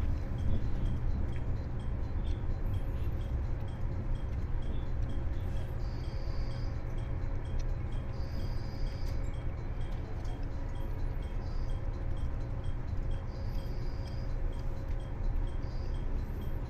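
Inside a 381 series electric train: a steady low rumble with a faint hum and a faint regular ticking about twice a second, broken by several short, high-pitched squeals.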